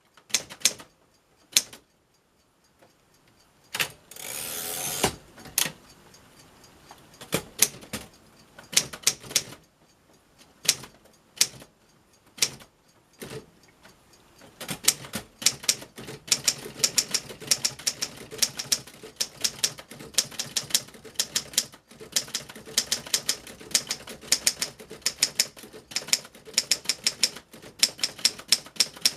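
1946 Underwood Standard manual typewriter being typed on: scattered single keystrokes with a second-long rasp about four seconds in, then a fast, steady run of typebar strikes from about halfway.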